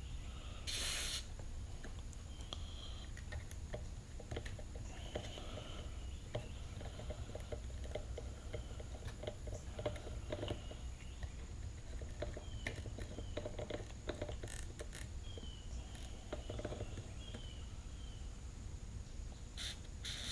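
Faint handling sounds of work on an electric string trimmer's open gearbox as grease is put on the new gear: scattered light clicks, taps and scrapes, with a brief louder rustle about a second in and more near the end, over a low steady hum.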